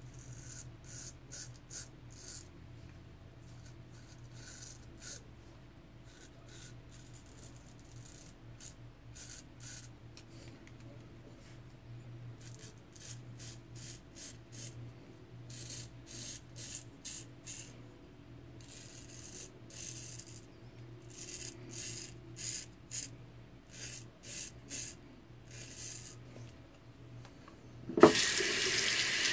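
J.A. Henckels straight razor scraping through lathered beard stubble in many short strokes, each a brief high rasp, coming in irregular clusters. About a second before the end, a tap is turned on and water runs steadily into the sink, louder than the strokes.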